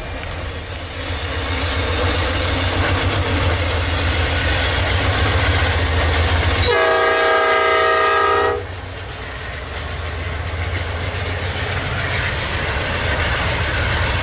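Diesel freight locomotives passing close by with a heavy, low engine rumble. About seven seconds in, a locomotive horn sounds a chord of several notes for about two seconds. Then the rumble of passing locomotives builds again.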